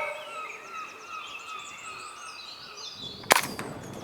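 Small birds singing, then about three seconds in a single sharp crack as a Walther Rotex RM8 .22 pre-charged air rifle fires.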